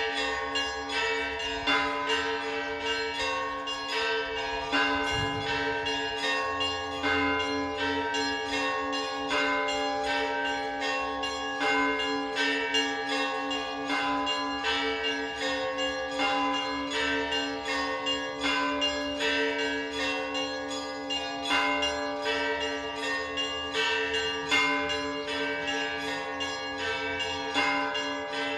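Russian Orthodox church bells ringing continuously: smaller bells are struck in quick, repeating patterns over the steady lingering hum of the larger bells.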